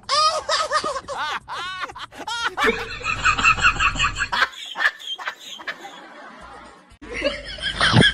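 Human laughter: a quick run of rising-and-falling "ha" syllables in the first couple of seconds, more laughing from about three to four seconds, and a loud burst again near the end.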